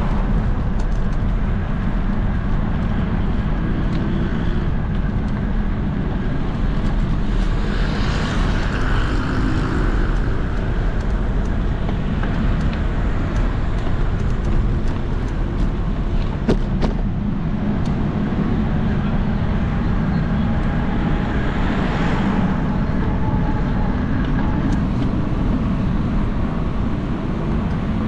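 Street traffic noise: a steady low rumble, swelling as vehicles pass about eight and twenty-two seconds in, with a single sharp click a little past the middle.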